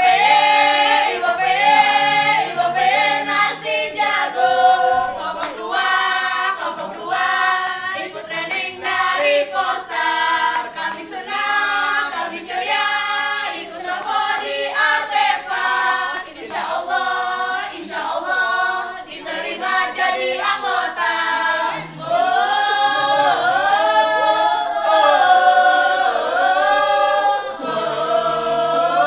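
A group of voices singing together in unison, a rhythmic group song. There is a brief break about three-quarters of the way through before the singing picks up again.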